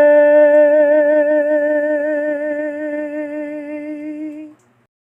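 A single voice holding the final sung note of a song, steady with a slight vibrato, fading and ending about four and a half seconds in.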